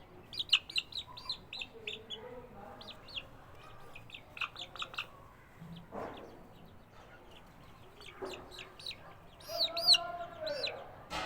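Aseel chickens calling: clusters of short, high chirps throughout, with a longer, lower call near the end.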